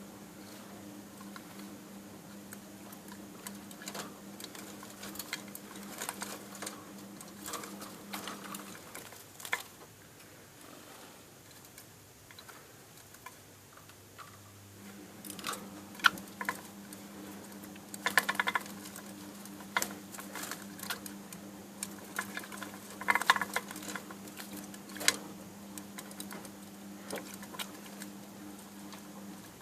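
Budgies bathing: small irregular splashes and taps in the water, coming in denser flurries about two-thirds of the way through, over a steady low hum that drops out for several seconds partway.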